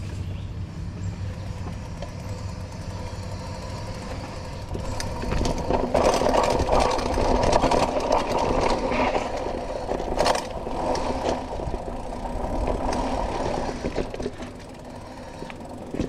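Mountain bike descending a dirt trail: tyres and wind make a low rumble, and from about five seconds in a steady buzz from the rear freehub, coasting at speed, rises over it. A few sharp knocks from bumps and rattles come through, the loudest about ten seconds in.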